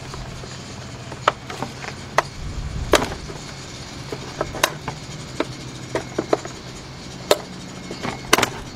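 Plastic pry tool levering at the clips of a car door mirror's plastic cover, giving irregular sharp clicks and snaps of plastic on plastic. The loudest snaps come about three seconds in and twice near the end, over a steady low hum.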